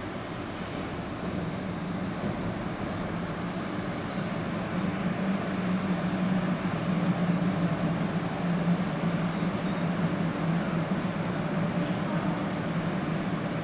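A 500 Series Shinkansen electric train at a station platform, giving off a steady mechanical hum with a low drone that swells about halfway through, and faint high whines over it.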